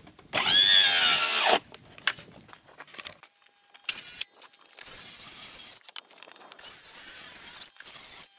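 Cordless Porter-Cable circular saw running in several short bursts as it cuts a plywood sheet. The first and loudest comes about half a second in and rises in pitch as the motor spins up. Four shorter, quieter runs follow.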